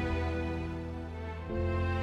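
Slow, tender background music of held chords, changing chord about one and a half seconds in.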